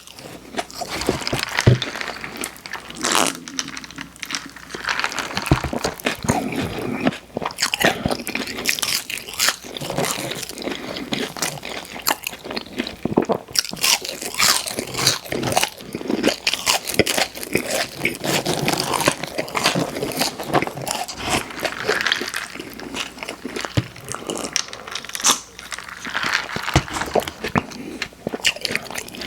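Close-miked eating: crunchy bites and continuous chewing with wet mouth sounds, the crunches coming irregularly, several a second.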